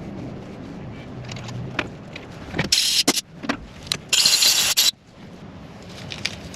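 Two short hissing blasts, the second longer, as air or spray is blown into a freshly tapped bolt hole, with a few light clicks and knocks of hand tools.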